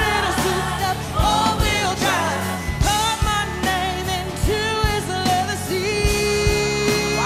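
Pop song: a lead singer's voice over a band backing with bass and drums.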